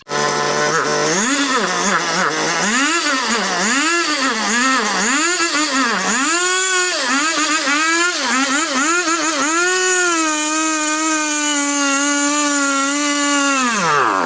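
Two-stroke chainsaw engine revving: it idles briefly, is blipped up and down over and over, then is held at high revs for about four seconds before dropping back near the end.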